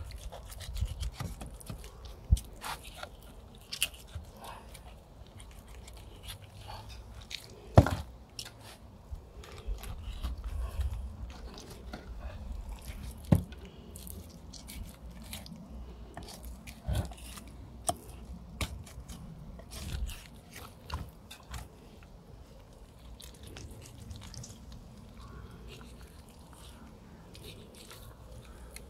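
Mora 711 knife cutting and scraping meat and cartilage off a pig's head: irregular crunching, scraping and small clicks, with a few sharper knocks.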